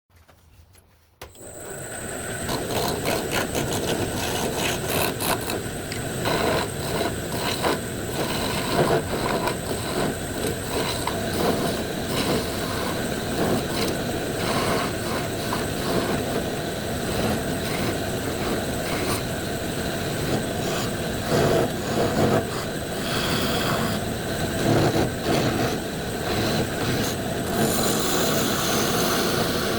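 Wood lathe running, starting about a second in, with a steady motor hum and the irregular scraping of a tool cutting the spinning wood.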